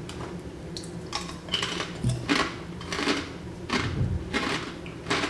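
A crisp being crunched and chewed with the mouth: a string of irregular crackly crunches.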